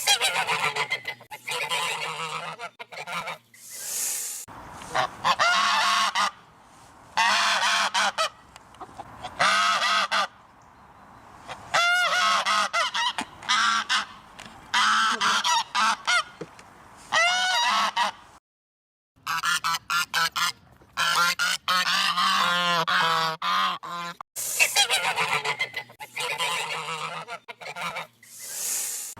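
Geese honking in repeated bouts, several calls overlapping, with short pauses between bouts and a brief silence about two-thirds of the way through.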